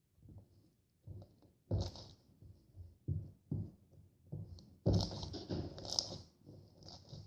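Irregular soft knocks and rustling, like objects being handled and set down, the busiest stretch about five seconds in.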